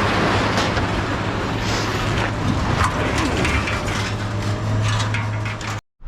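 Steady vehicle running noise, a low engine hum under even road rumble, with a few light knocks, cutting off suddenly near the end.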